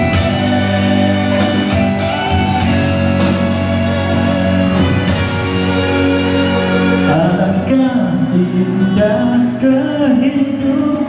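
Pop song music with a steady beat; a singing voice comes in about two-thirds of the way through.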